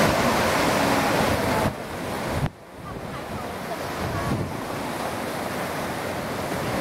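Ocean surf washing onto a sandy shore, with wind buffeting the microphone. The noise drops abruptly about two and a half seconds in, then slowly builds again.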